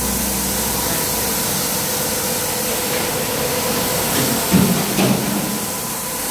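Industrial carpet-cleaning machine running: a steady hiss with a faint constant hum, and a brief louder low sound about four and a half seconds in.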